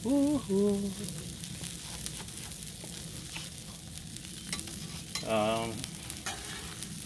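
Burger patties and buttered buns sizzling steadily on a Blackstone flat-top griddle. Two short hummed vocal sounds come near the start and about five seconds in.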